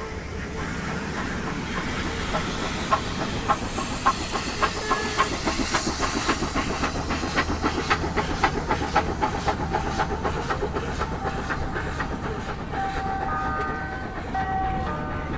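Old train moving along the track, its wheels clicking over rail joints in a steady rhythm of about two clicks a second, over a hiss. A few held tones come in near the end.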